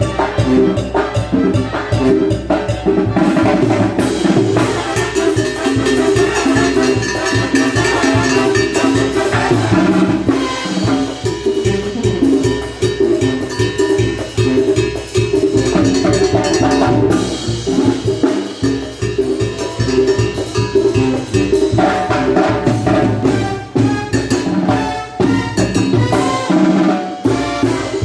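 A live band playing cumbia dance music, with a steady drum and percussion beat under the instruments.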